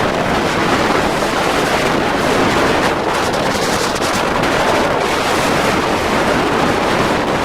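Storm wind from Hurricane Sandy blasting the microphone: a loud, steady roar of wind noise, probably mixed with the surf.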